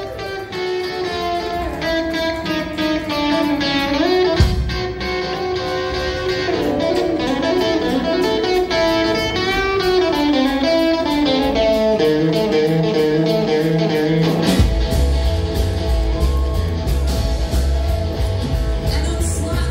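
Live rockabilly band, led by a hollow-body electric guitar playing a melodic solo over sparse backing with little bass. About fifteen seconds in, the upright bass and drums come back in strongly under the full band.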